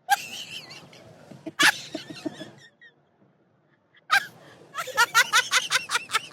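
A rough, noisy vocal sound lasting a couple of seconds, then after a short pause a person laughing in quick, rapid pulses.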